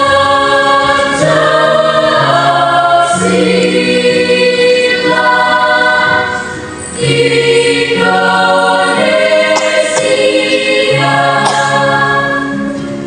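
Junior high school choir singing in parts, holding sustained chords that change every second or so, with a short break between phrases about halfway through.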